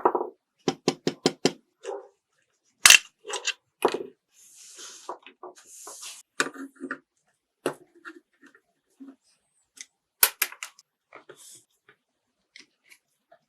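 Sharp clicks, taps and light knocks of small plastic and metal parts and hand tools being handled on a scale model car, with a quick run of clicks about a second in and two short hisses in the middle.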